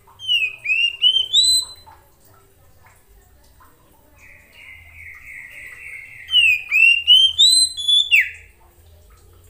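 Oriental magpie-robin singing: a quick run of four loud, upslurred whistles, then after a pause a softer scratchy run of notes leading into another series of rising whistles that ends in a sharp downslurred note.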